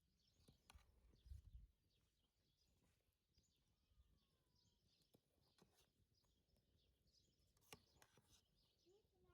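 Faint small birds chirping now and then in the background, with a few light clicks and a soft low thump about a second and a half in.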